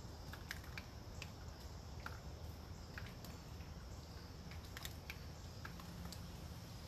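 Scattered, irregular ticks of water drops falling onto leaves in a wet forest, a few each second, over a faint steady low rumble of wind.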